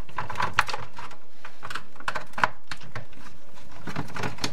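Light, irregular clicks and taps of hands handling the plastic underside of a Roomba 4000 robot vacuum.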